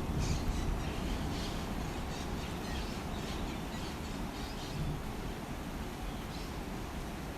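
Birds chirping a few short calls, most of them in the first few seconds, over a steady low rush of river water.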